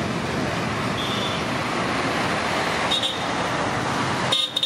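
Steady noise of road traffic with two brief high beeps, about a second and three seconds in; the background changes abruptly just before the end.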